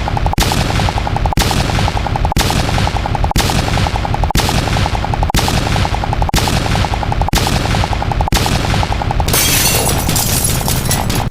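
A rapid, continuous stream of overlapping sharp pops like machine-gun fire, with a heavier hit about once a second: a counting sound effect repeated faster than it can be told apart. About nine seconds in it changes to a harsher, hissier crackle.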